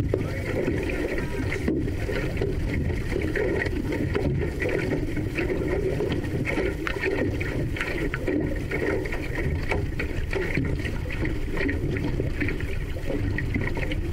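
Water rushing along the hull of a paddled outrigger canoe, with the repeated splash of paddle strokes over a steady low rumble.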